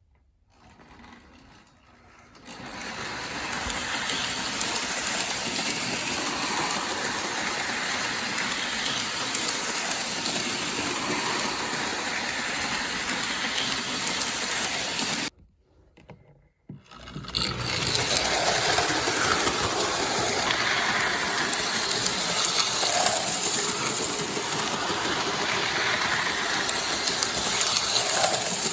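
Lionel O-gauge toy train with a metal locomotive running on its track: a steady electric whirring and rolling noise that starts a couple of seconds in, cuts out suddenly for about a second and a half past the middle, then runs on.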